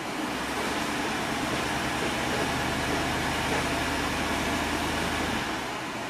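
Jeep Commander's 5.7 Hemi V8 idling rough, heard from inside the cabin. The roughness comes from a dead misfire on cylinder 7.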